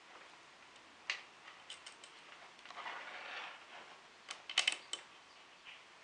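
Fingers handling thin electrical wires and a plastic connector plug: scattered small clicks and a brief scraping rustle near the middle, then a quick cluster of sharper clicks about four and a half seconds in.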